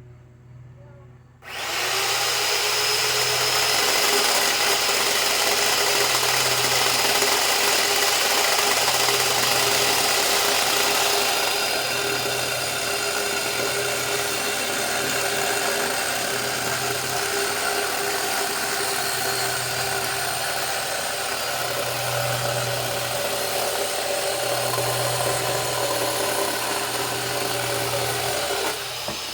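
Worx electric chainsaw switching on abruptly about a second and a half in and running steadily as it cuts through pressure-treated lumber. The motor makes a constant whine that changes slightly partway through the cut, then drops away near the end.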